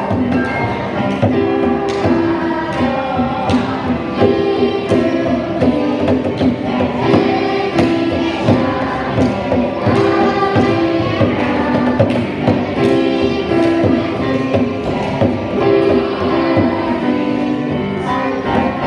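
A group of children singing a song together with digital piano accompaniment and hand-drum taps keeping the beat.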